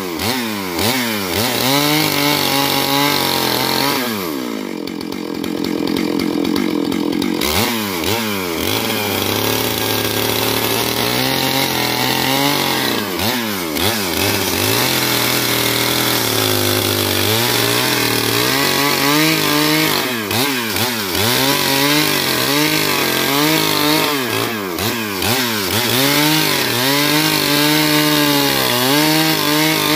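Stihl MS 661 two-stroke chainsaw running at full throttle while ripping lengthwise through a log, its pitch wavering up and down as the chain works through the wood. About four seconds in it briefly settles to a steadier, slightly quieter note before the cutting pitch returns.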